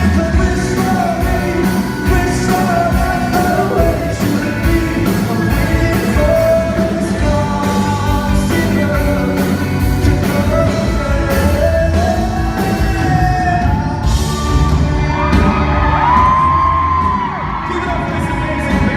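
Male singer performing live with a rock band with drums in a large hall, picked up by an audience member's recording device. About fourteen seconds in the band thins out and high, held vocal notes carry on, with yells and whoops from the audience.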